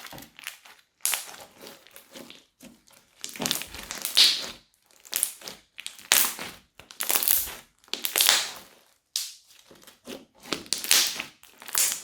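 Crunchy slime being squeezed and pressed by hand, giving a series of crackling crunches about once a second with short pauses between.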